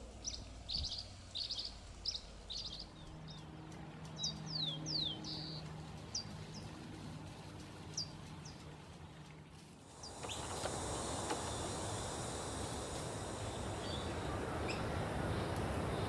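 Small birds chirping: a quick series of short, high notes with a few falling whistled sweeps, then a couple of single chirps. About ten seconds in, the background changes to a louder steady hiss, with only a faint chirp or two over it.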